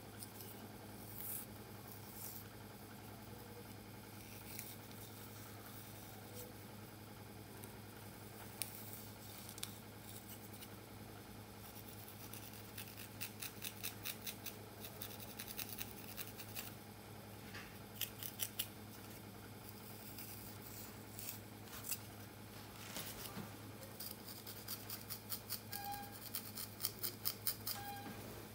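Close-up crackling and scratching of coarse hair as cornrows are unpicked with a wooden comb and fingers. Runs of quick clicks come as the comb teeth drag through the hair, loudest near the end, over a steady low hum.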